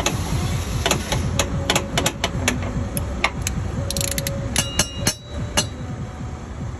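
Irregular sharp metallic clicks and taps of tools and parts against the steel belt tensioner and its mounting as the tensioner is worked into place for its pins, with a short metallic ring about four seconds in, over a steady low rumble.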